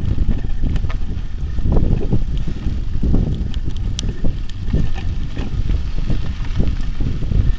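Riding noise from a camera on a mountain bike rolling over a gravel dirt track: an uneven low rumble of tyres and wind on the microphone, with scattered clicks and rattles.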